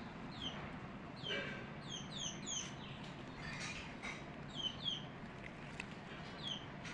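Small birds chirping: many short, high notes that slide quickly downward, coming in quick runs, over a steady low background rumble.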